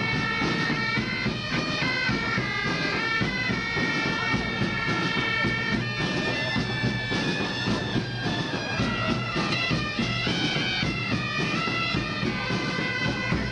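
Several Highland bagpipes of a pipe band playing a tune, the melody stepping from note to note over the pipes' steady drone.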